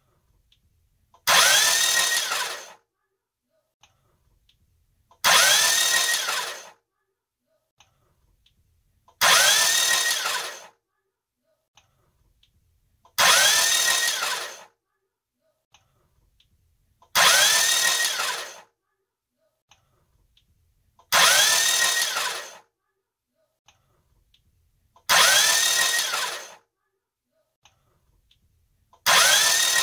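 Honda B21A1 four-cylinder engine turned over on its starter with the cylinder head off and the crankshaft cracked in half. Eight short bursts of cranking, one every four seconds, each about a second and a half long, with a starter whine that rises and falls.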